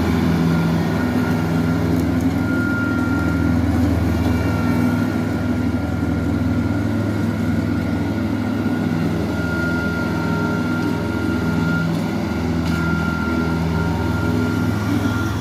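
Tractor-drawn grass cutter running steadily, its engine humming, with a thin high whine that comes and goes.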